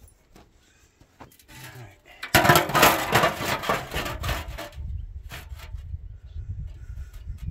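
Rusty steel cement-mixer drum section set down on the steel base and scraped into place. About two seconds in comes a loud, rough metal-on-metal scrape with many small clicks, lasting about two and a half seconds.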